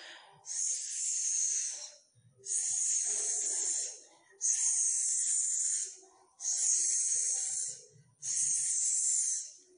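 A woman hissing the long "sss" phonics sound of the letter S five times, each hiss about a second and a half long with a short pause between.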